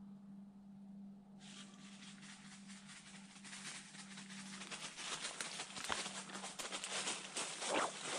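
Footsteps crunching and rustling through dry leaves and brush. They start suddenly about a second and a half in and grow louder and closer, over a low steady hum that stops a little past six seconds in.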